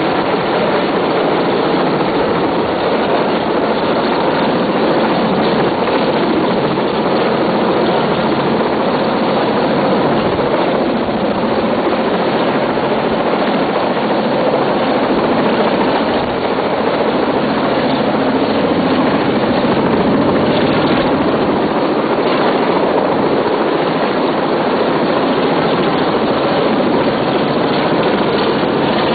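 Helicopter running steadily: a loud, continuous rotor and engine noise with a few steady tones underneath, unchanging throughout.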